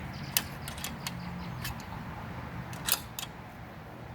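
A handful of short, sharp clicks and clinks of hand tools and parts being handled, with the loudest a double click about three seconds in.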